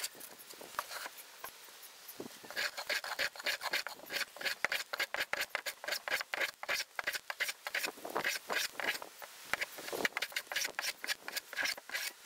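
Hand plane shaving the edges of laminated pallet-board struts: a rapid series of short planing strokes, lighter for the first couple of seconds and then steadier.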